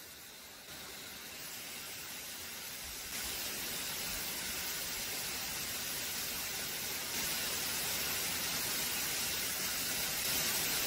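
Water rushing down a lake's spillway as a waterfall: a steady hissing rush that gets louder in steps, about a second in, three seconds in, seven seconds in and again near the end.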